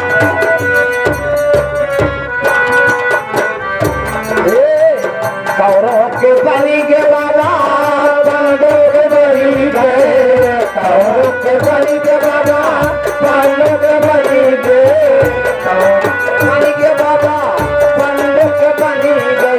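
Folk stage music: a melody of long, wavering held notes over the beats of a hand drum.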